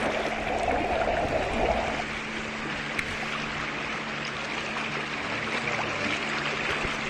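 Rushing river water flowing over a rocky bed, a steady noisy wash that is louder for the first two seconds.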